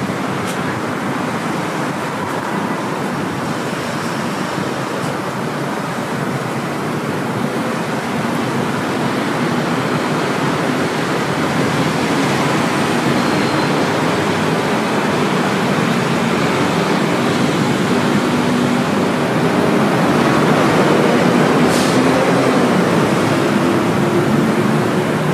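Steady city traffic noise from the road and elevated rail line, growing a little louder in the second half, with one brief click near the end.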